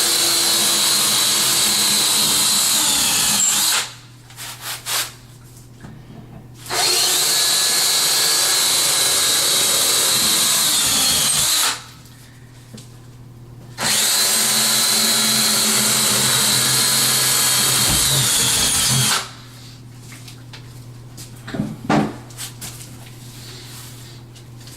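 Power drill running at full speed in three long runs of about five seconds each, drilling through the back rail of a bathroom vanity cabinet toward the wall studs. Each run winds down in pitch as the trigger is released. There are a few light knocks in the pauses between runs.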